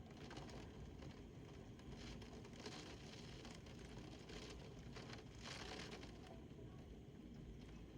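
Faint windstorm noise: a low, steady rush of wind with a light patter of precipitation. The patter swells in gusts about two seconds and five seconds in.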